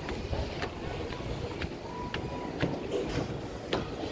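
Footsteps on an outdoor staircase, about two steps a second, over wind rumbling on the microphone.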